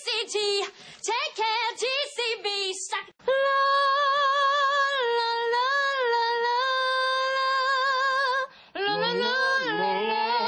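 A young woman singing, first in short quickly moving phrases, then holding one long high note for about five seconds. Near the end a lower man's voice comes in singing with her.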